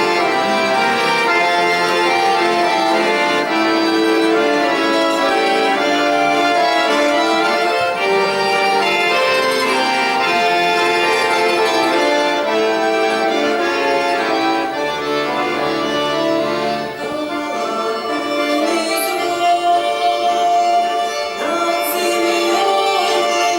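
Instrumental introduction of a Russian folk song, led by an accordion playing sustained chords and a melody, with no singing yet. Two brief sharp percussive strikes come near the end.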